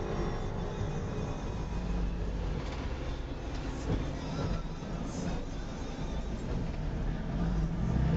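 Engine and road noise from inside a moving vehicle: a steady low rumble.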